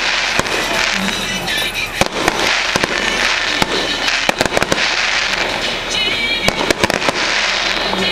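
Aerial fireworks going off in rapid succession: many sharp bangs and crackles, with no break between them.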